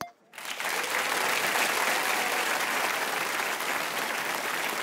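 Audience applause: steady clapping that starts abruptly about half a second in and holds an even level.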